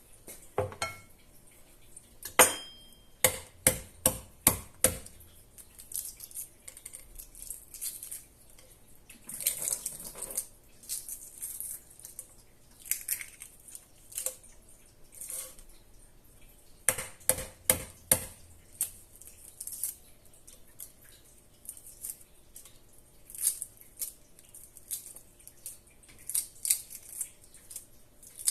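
Kitchen dishes and utensils being handled: a ringing clink as a dish is set down, quick runs of knocks against the counter and crockery, and short rustles in between.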